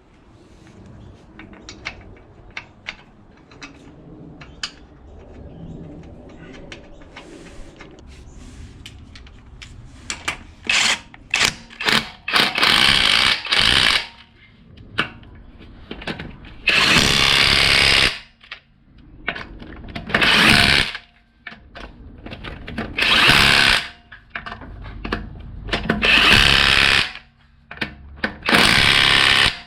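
Ozito 18V brushless 1/2-inch impact wrench running lug nuts back onto a car wheel in repeated bursts: a few quick blips, then about five runs of a second or two each. Before that come scattered clicks and knocks of the wheel and nuts being handled.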